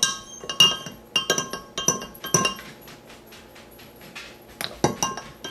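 Metal spoon clinking against the sides of a glass Pyrex measuring cup while stirring honey into a soy-sauce marinade. Quick ringing clinks come through the first couple of seconds, then a quieter stretch, then a few more near the end.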